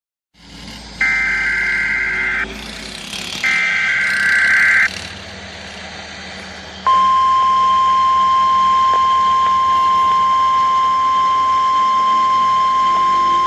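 NOAA Weather Radio alert coming through a weather radio receiver's speaker. First come two short buzzing digital data bursts, the SAME header codes, each about a second and a half long. Then, about seven seconds in, the steady single-pitch 1050 Hz warning alarm tone starts suddenly and keeps sounding.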